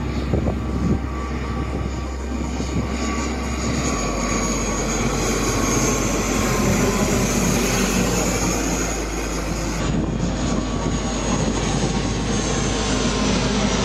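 ATR 72 twin-turboprop airliner on landing approach: a steady engine and propeller drone with a high whine that slowly drifts lower in pitch.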